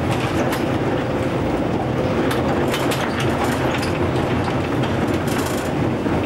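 Vintage electric tram running along its track, heard from inside the wooden saloon: a steady rumble of wheels on rail with scattered clicks and rattles.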